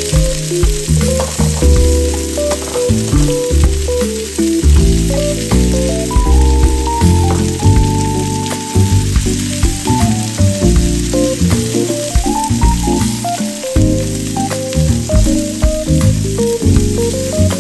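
Diced vegetables and sliced red onion sizzling in hot oil in a stainless steel wok, with a spatula stirring them, over background music with a melody.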